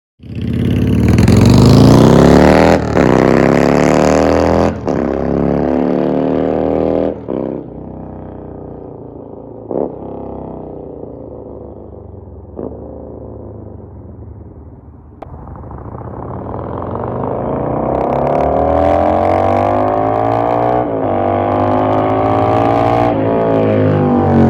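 1994 Yamaha XV750 Virago's air-cooled V-twin through a no-name aftermarket eBay exhaust, running and being revved with the pitch rising and falling. It starts loud, drops to a quieter steady run in the middle, then builds again with rising revs near the end.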